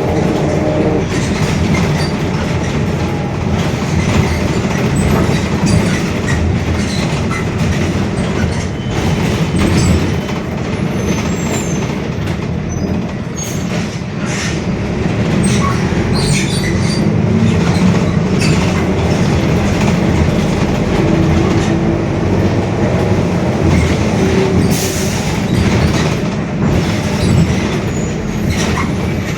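Mercedes-Benz OF-1721 Bluetec 5 bus running, a steady low drone from its diesel engine and drivetrain with the differential growling, over continual rattling and clicking from the body.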